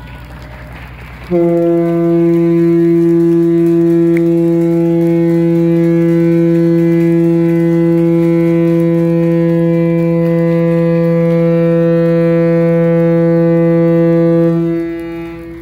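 Ship's whistle sounding one long steady blast of about thirteen seconds, a single low tone that starts suddenly about a second in and fades out near the end: a farewell blast at the ship's retirement.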